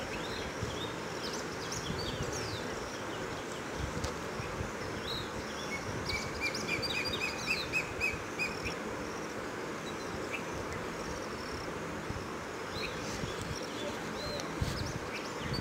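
Wild birds chirping and calling over a steady outdoor hiss. About six seconds in, one bird gives a quick run of about nine short, even chirps lasting a couple of seconds.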